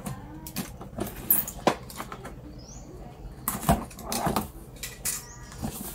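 Cardboard box being opened by hand: taped flaps pulled and scraped, giving irregular sharp clicks and rustles, busiest around the middle.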